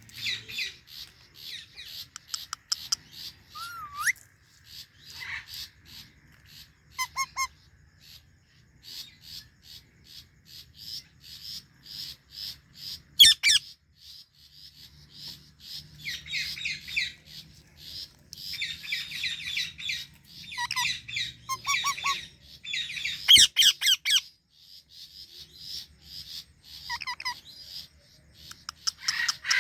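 Indian ringneck and Alexandrine parakeets chirping in quick repeated short calls, with two louder harsh squawks, one about halfway through and another about ten seconds later.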